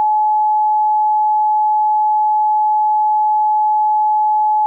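A single steady, unchanging electronic tone, one pure pitch a little below 1 kHz: a mock emergency-alert attention tone.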